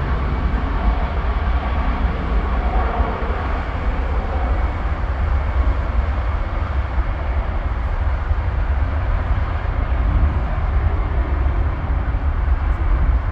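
Steady rumbling airport noise from taxiing jet airliners and ground vehicles passing close by, with a strong low rumble throughout.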